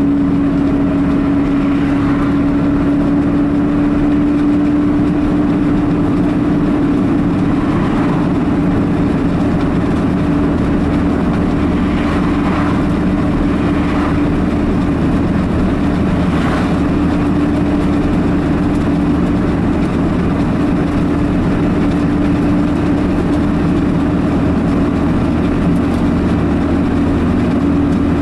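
Car engine and tyre noise heard from inside the moving car's cabin: a steady drone with a constant low hum, and a few faint whooshes as oncoming cars pass.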